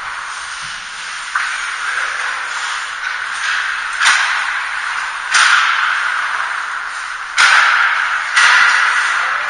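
Ice hockey skates scraping and carving on rink ice: a steady hiss with several hard scrapes that start suddenly and fade over about a second, the loudest near the end. A few sharp clacks of hockey sticks and puck come with them.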